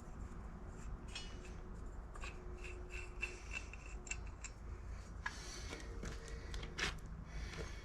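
Scattered light metallic clicks and scrapes over a low rumble, with a couple of louder clacks in the second half, from tools and metal parts being handled.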